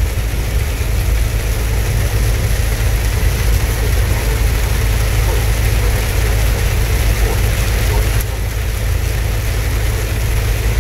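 Car cabin noise while driving through heavy rain: a steady low rumble of engine and tyres on the wet road, with rain hitting the windshield and roof.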